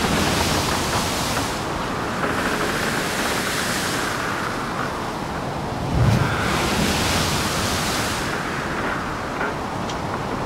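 Surf washing on a gravel beach, a steady rush with one wave breaking about six seconds in.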